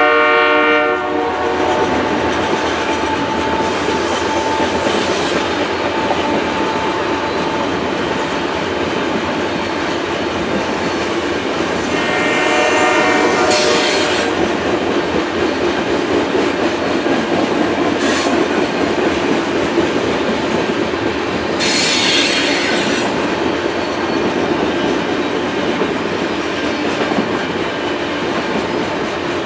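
Coal hopper cars of a long freight train rolling past, with a steady rumble and clatter of wheels on rail. A horn chord fades out about a second in, and a few brief high wheel squeals cut in around the middle.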